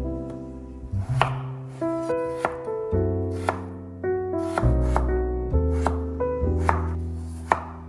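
Chef's knife chopping peeled raw potatoes on a wooden cutting board: a run of sharp, irregular knocks as the blade cuts through and hits the board, about every half second. Background music plays underneath.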